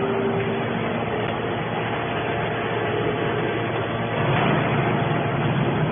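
Hydraulic scrap metal baler running: its hydraulic power unit gives a steady hum and rush while the lid cylinder drives the top cover. The sound gets louder about four seconds in.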